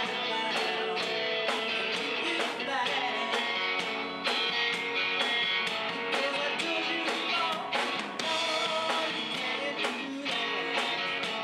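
A live rock band playing: electric guitar over a drum kit keeping a steady beat.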